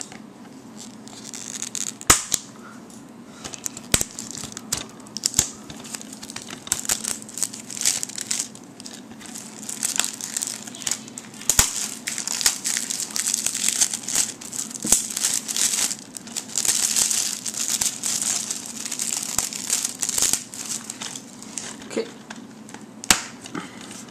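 Plastic shrink-wrap being peeled and torn off a new DVD case, crinkling and crackling in uneven spells, with scattered sharp clicks from the plastic case being handled.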